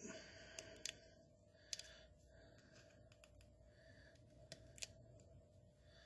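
Near silence broken by a handful of faint, small clicks as a rubber diaphragm is worked out of a 4L60E transmission's pressure manifold switch, over a faint steady hum.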